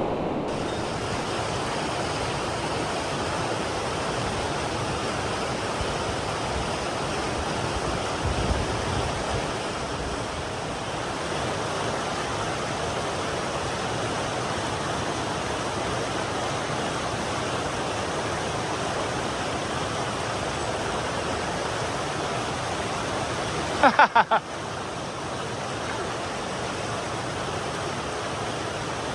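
Mountain headwater stream rushing steadily, running high. About 24 s in there is a brief loud burst of a few short pitched notes.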